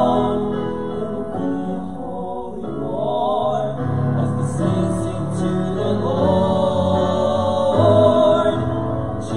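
Male vocal quartet singing in harmony through handheld microphones, holding long chords with vibrato.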